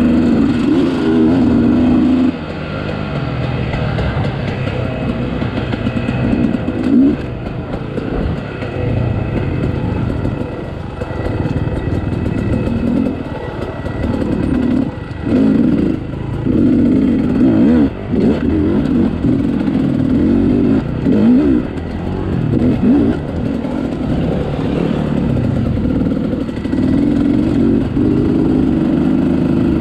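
Two-stroke dirt bike engine ridden on rough trail, its revs rising and falling with the throttle and cut back briefly a few times.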